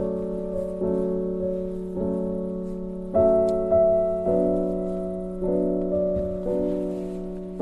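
Piano music playing slow chords, a new chord struck about once a second and left to fade.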